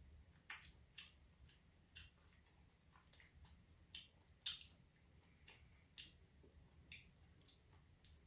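Faint, scattered clicks and taps of chopsticks against plastic takeaway food containers, irregular, one every half second to a second or so, the sharpest about four and a half seconds in.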